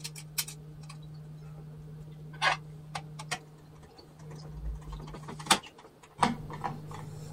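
Scattered small clicks and taps of a screwdriver and wires at the terminal screws of an intercom handset as the wires are fastened, over a faint steady low hum.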